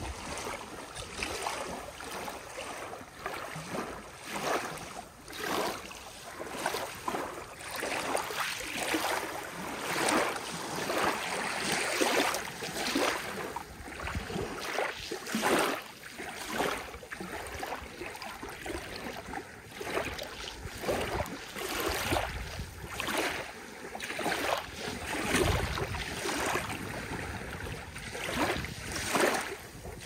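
Small waves washing onto a beach, coming in irregular swells of splashing noise every second or two.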